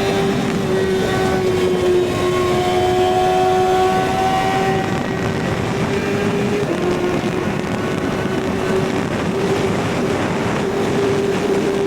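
Kawasaki ZX-6R's inline-four engine running at steady, fairly high revs under way, with rushing wind noise; its note drops briefly about two-thirds of the way through, then settles back.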